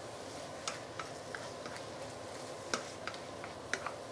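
Glass noodles and prawns stir-fried in a non-stick wok with a wooden spatula: a steady low sizzle, with scattered sharp clicks as the spatula knocks against the pan.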